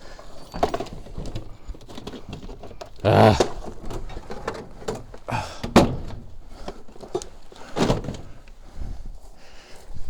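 A handful of separate knocks and thuds from things being handled and set down, the heaviest about three seconds in and a sharp knock near six seconds.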